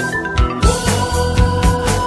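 Background music with a steady drum beat and a simple melody.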